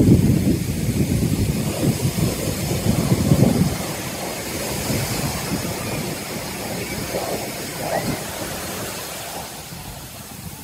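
Aircraft flying past: a loud, low rumbling engine noise for the first few seconds, then fading steadily as the aircraft moves away.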